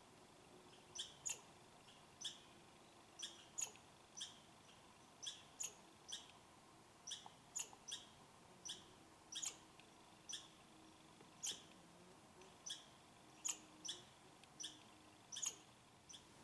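An animal's short, sharp high chip calls, repeated about once or twice a second at uneven spacing.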